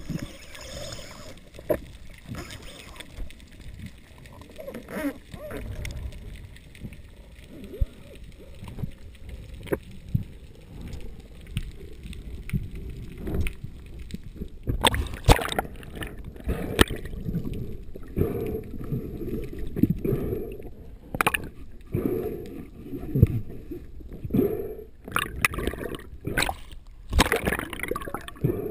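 Underwater sound from a diver's camera during a freedive: a low rushing and gurgling of water, broken by many sharp clicks and knocks that grow denser in the second half.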